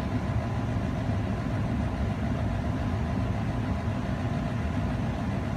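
Steady low mechanical rumble with a faint, even hum above it, unchanging throughout.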